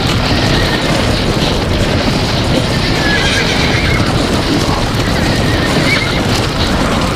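A herd of horses galloping in a stampede, a loud, unbroken rumble of many hooves, with a few short horse whinnies over it.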